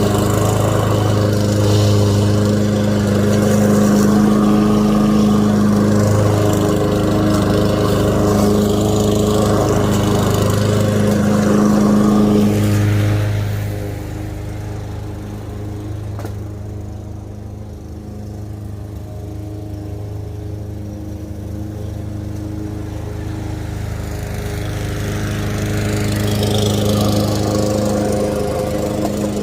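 Lawn mower engine running steadily while cutting grass. It drops to a quieter level about halfway through and grows louder again near the end.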